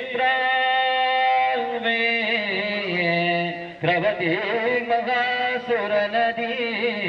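A song with a singing voice over instrumental backing, the voice holding long notes that waver and bend in pitch over a steady low accompaniment.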